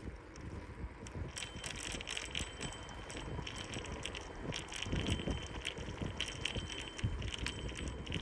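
Bicycle rolling over asphalt, with irregular metallic ticks and rattles from the bike and a faint ringing tone over low tyre and wind rumble. The ticking starts about a second in.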